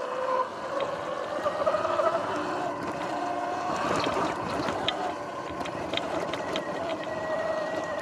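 Electric dirt bike's motor whining at a pitch that drifts up and down with speed, over tyre noise on a dirt trail, with scattered sharp clicks and rattles as the bike goes over bumps.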